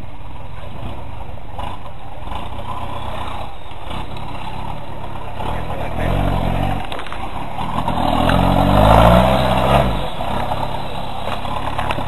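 Engine of a Toyota off-road 4x4 working on a steep climb, running steadily and then revving hard twice. The first is a short rev about six seconds in. The second is a longer one that rises in pitch, peaks around nine seconds and falls away about a second later.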